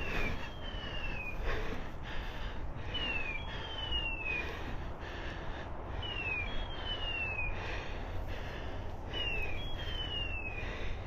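Electronic beeper collar on a hunting dog, sounding a two-part descending whistle that repeats very regularly about every three seconds, the kind of signal these collars give when the dog is on point. Footsteps crunch through dry leaves underneath.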